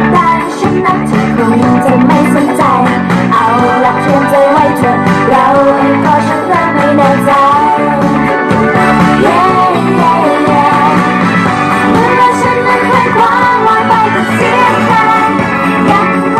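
A song with singing, played through the LP-08 portable Bluetooth soundbar, streamed from a phone over Bluetooth.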